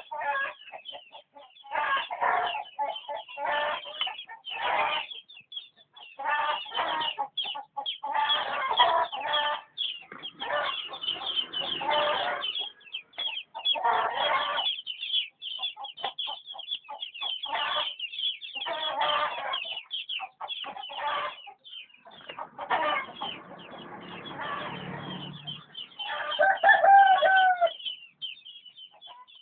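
Chickens clucking and squawking in rapid, overlapping bursts with short pauses, like a squabble, with one louder, drawn-out call near the end.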